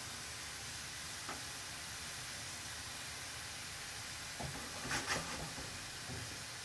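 Stuffed squid and softened chopped onion frying gently in a pan, a steady soft sizzle, with a few light taps about four to five seconds in as the squid are settled into the pan by hand.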